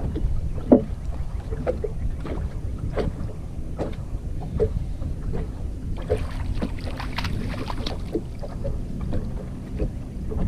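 Steady wind rumble buffeting the microphone over a boat on choppy water, with small knocks and water slaps against the hull. There is a sharper knock about a second in, and a busier patch of clicks and splashes from about six to eight seconds in.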